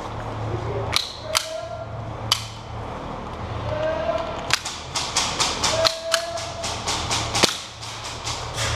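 Airsoft guns firing: a few single sharp shots, then a quick string of shots at about five a second lasting a few seconds.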